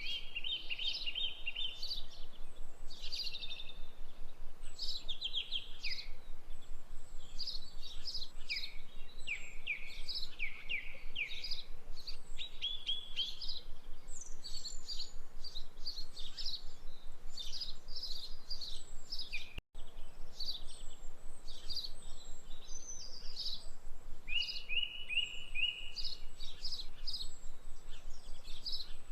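Small birds chirping and trilling, many short calls overlapping without a break, cutting out for an instant about twenty seconds in.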